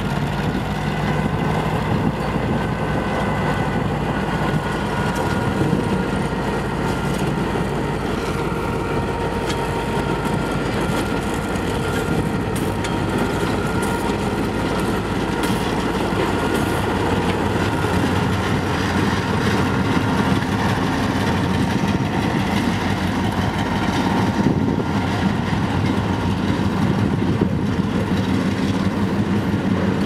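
GM G12W diesel-electric locomotive's EMD two-stroke V12 engine running steadily as it shunts slowly past at close range, with faint thin high tones above the engine sound in the first half.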